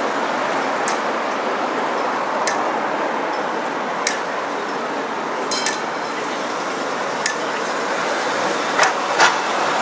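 City street ambience: a steady hum of road traffic, with a sharp tick that repeats about every second and a half.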